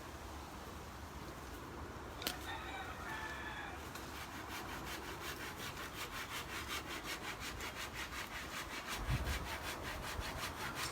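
Japanese hand saw cutting through a tree branch with quick, even strokes, starting about four seconds in. A bird gives a short call shortly before the sawing begins.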